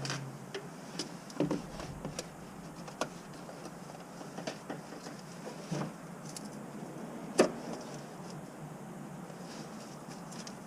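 Scattered metallic clicks and light knocks of a hand and an oil filter wrench working against an oil filter and engine parts under a pickup, while loosening the filter. One sharp knock, louder than the rest, comes about seven seconds in.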